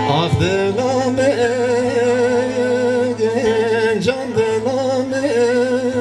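Live folk music: a bağlama (long-necked saz) plays under a male voice singing a melody with heavy, wavering vibrato and sliding ornaments.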